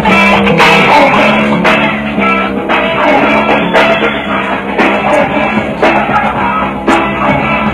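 Instrumental music without vocals: a repeating guitar and bass line over a drum beat.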